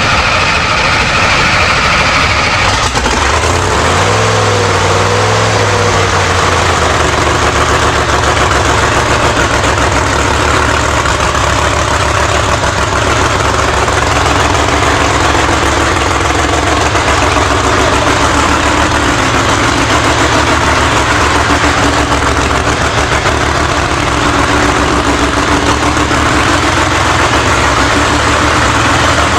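Pro Line MH7 race engine just fired up in a drag car, revved a couple of times early on, then settling into a loud, steady idle.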